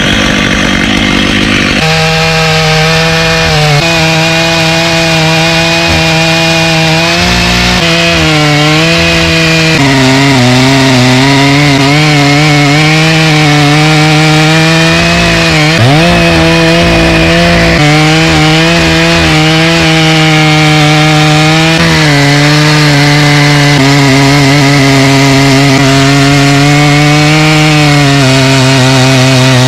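Stihl MS 880 two-stroke chainsaw running flat out under load, ripping lengthwise through a large old poplar log in a chainsaw mill. Its pitch holds steady with small wavers, and dips briefly and recovers about halfway through.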